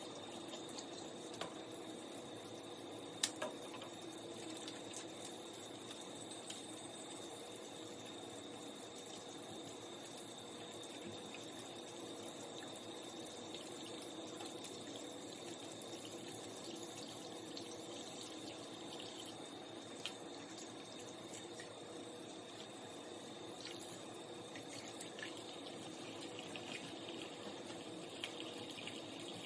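Water running steadily from a tap into a sink, with a few small knocks, the loudest about three seconds in.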